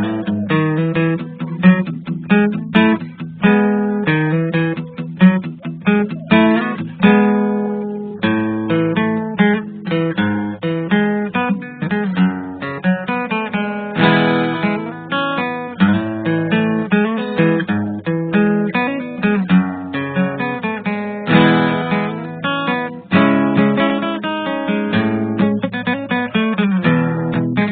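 Background music on acoustic guitar: a quick, continuous run of plucked and strummed notes.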